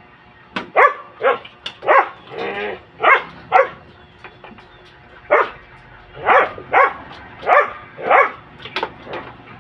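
A dog barking repeatedly: about a dozen short barks in irregular runs, with a pause about halfway through.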